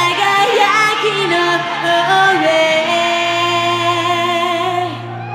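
Female pop vocalist singing live into a handheld microphone over instrumental backing, the melody stepping up and down before a long held note that ends about five seconds in.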